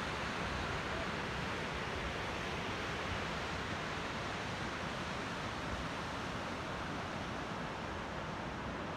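A mountain river rushing through rapids, with small waterfalls spilling into it: a steady rushing noise.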